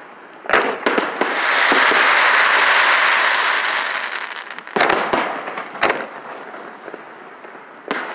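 Aerial fireworks shells bursting at close range: several sharp bangs, with a long hiss from about one to four and a half seconds in.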